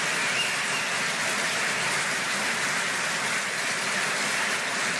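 A large audience applauding, a steady dense wash of clapping that holds at an even level throughout.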